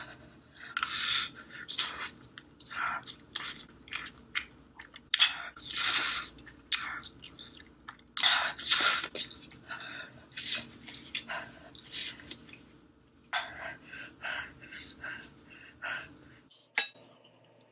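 A person eating Korean fire-chicken spicy noodles close to the microphone: irregular bursts of chewing and mouth noise, with a couple of sharp clicks near the end.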